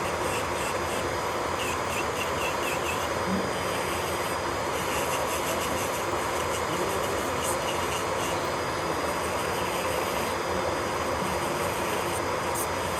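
Electric nail drill running steadily, a continuous whir with a faint steady whine.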